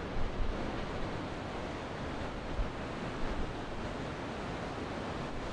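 Surf breaking and washing in steadily, with wind buffeting the microphone in a few short low thumps.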